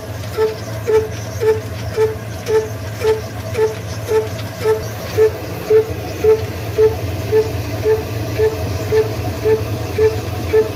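Old Ruston Hornsby diesel engine running slow and steady under load, driving a stone flour mill: a continuous low hum with an even beat about twice a second.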